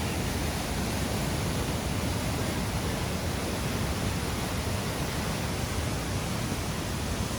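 Fast, cold spring-fed river rushing out from underground: a steady, even sound of churning water.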